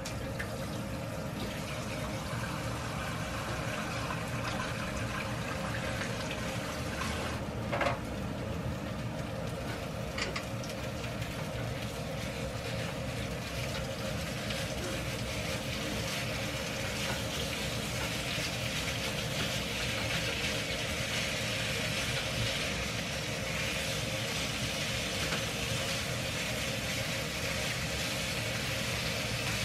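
Marinated pork and onions sizzling in a square frying pan, the sizzle growing stronger from about halfway through, with a plastic spatula stirring and a single knock about eight seconds in. A steady low hum runs underneath.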